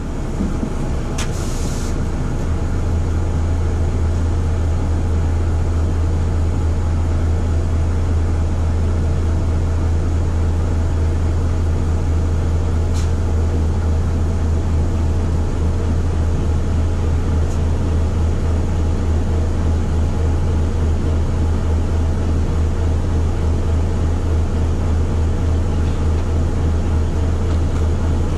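Volvo FH 540 truck's 13-litre straight-six diesel running steadily, heard from the cab as a strong low drone that settles in a couple of seconds in. About a second in there is a short hiss of air as the air suspension lowers the lift axle.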